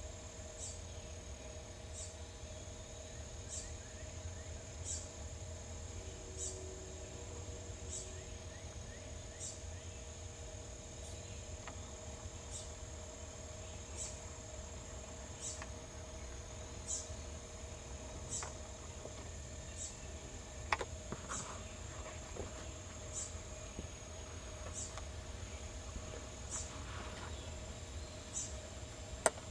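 Insects calling: a steady high-pitched trill with a short high chirp repeating about every second and a half, over a low rumble. A sharp click comes about two-thirds of the way through, and another near the end.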